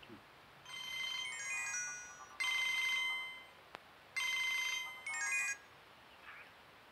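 Mobile phone playing a melodic electronic ringtone: three short phrases of high chiming notes, with a brief click between the second and third.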